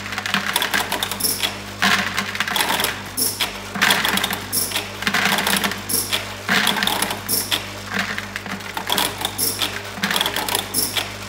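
IMA Swiftpack Swiftvision SV2 tablet counting machine running: its vibratory feeder trays hum steadily while tablets rattle and click along the channels and through the counting head, in uneven surges of clatter.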